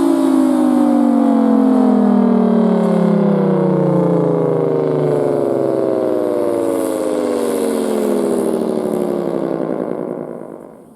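Federal Signal Thunderbolt 1000T tornado siren winding down at the end of its two-minute alert signal during a routine test. Its tone falls steadily in pitch, then fades out about ten seconds in.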